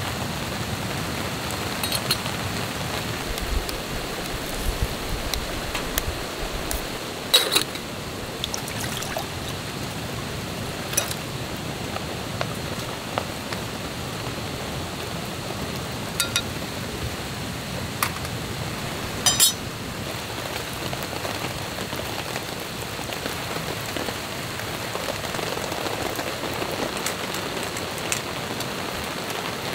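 Steady rain falling on the tarp overhead, with a handful of sharp metal clinks from a titanium camping pot, its lid and utensils being handled.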